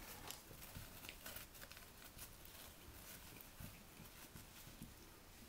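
Faint scrabbling and pattering of young puppies' paws on a blanket and puppy pad as they wrestle, a scatter of light clicks over quiet room tone.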